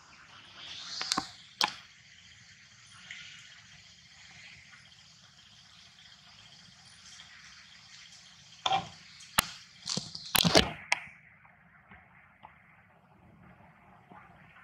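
A few sharp cracks and knocks, two about a second in and a quick cluster of four or five between about nine and eleven seconds in, over a steady high hiss that thins out after the last knock.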